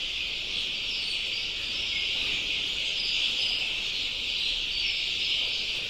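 Steady, dense chorus of many fifteen-day-old desi chicks peeping at once, their high calls merging into one continuous sound.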